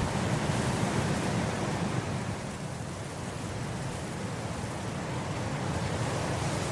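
Wind blowing across grass: a steady rushing with a strong low rumble. It eases a little about two seconds in and builds again toward the end.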